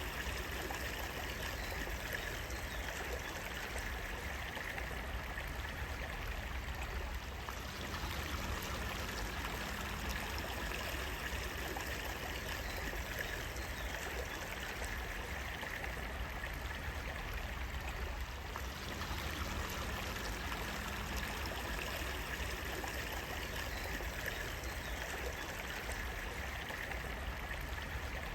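Water running steadily over stones, like a small stream, an even unbroken rush.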